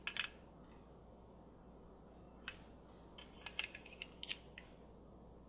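Light plastic clicks and taps from hard plastic toy pieces being handled: a doll's snap-on dress hooked onto a toy vanity's hanger. A couple of clicks at the start, one about two and a half seconds in, then a quick cluster of clicks around three to four seconds in.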